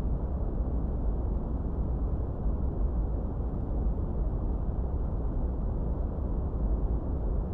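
Steady, unchanging generated noise, deep and rumbling, heavy in the low end and dull in the highs, like brown noise, used as a study background.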